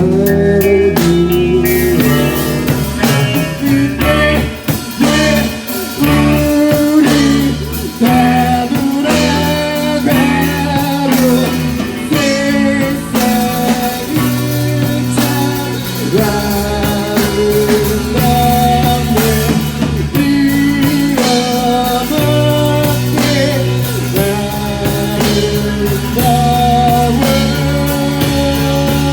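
Rock band playing an instrumental passage: a guitar melody over bass and a steady drum beat.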